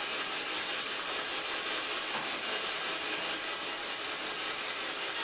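Spirit box sweeping through radio stations, giving a steady hiss of static while the sitters wait for a reply.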